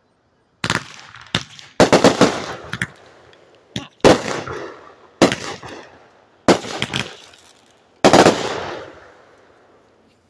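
Consumer aerial fireworks launched from the ground and going off: a string of sharp bangs, some single and some in quick clusters, about a second apart. Each bang fades out over a second or so, and the last one has the longest tail.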